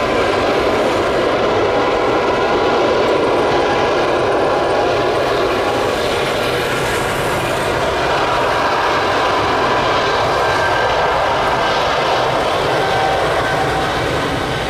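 Boeing 777-300ER's GE90-115B turbofan engines running at takeoff thrust: a loud, steady jet roar with several high whining tones held level throughout.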